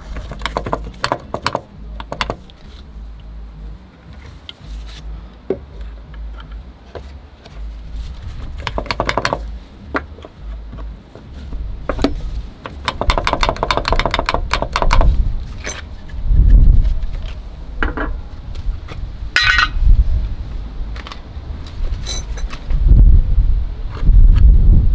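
Hands working on a car's fuel filler flap mechanism: metal parts and tools clinking and knocking, with a quick run of clicks about halfway through and a short squeak a little later.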